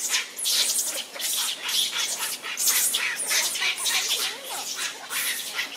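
Young macaque screaming in rapid, shrill, repeated shrieks, several a second, a distress cry as an adult grabs and holds it.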